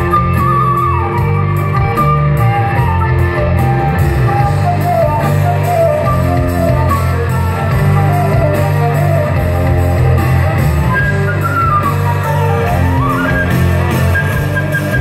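Loud live band music: a flute plays a wandering melody with pitch slides over guitar and a steady bass.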